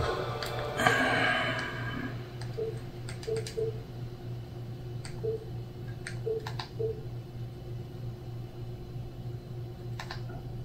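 Scattered light clicks and taps over a steady low hum, with a louder rustling patch about a second in and a few short soft blips.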